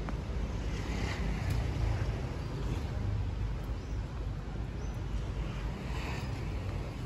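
Steady outdoor city street ambience: a low rumble of traffic, with a few faint high chirps in the middle.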